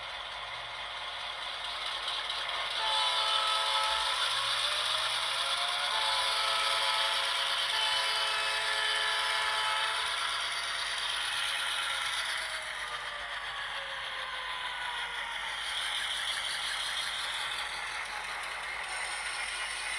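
ESU sound decoder in a model WAGR XA class diesel locomotive playing diesel engine sound through its small speaker as the model runs; the engine note rises a few seconds in, holds, then falls back later on.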